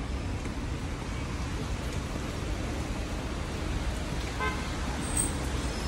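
Steady wash of rain and road traffic noise, with a short horn toot about four and a half seconds in.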